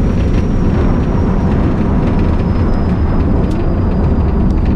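Loud, steady wind and road rumble inside a Tesla Model S Plaid cabin at high speed near the end of a quarter-mile pass, with a faint high whine slowly dropping in pitch.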